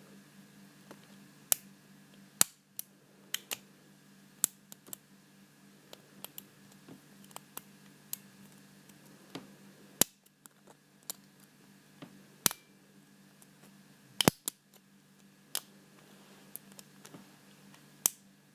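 Irregular sharp metallic clicks of a lock pick and tension wrench working the pins of a Paclock PL410PRO seven-pin padlock, a few of them louder than the rest.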